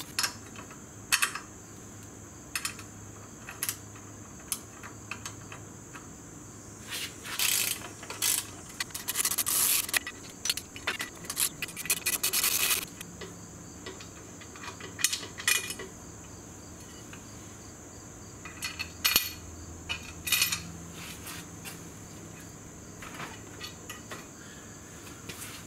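Hand-tool work on a motorcycle's exhaust silencer fittings: sharp metal clinks, then three stretches of rapid clicking about seven to thirteen seconds in, and a few more clinks later, as the silencer's bolts and band clamp are loosened. A cricket chirps steadily throughout.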